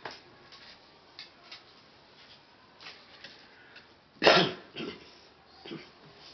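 A person coughing off-picture: one loud cough about four seconds in, followed by two weaker ones, after a few faint ticks.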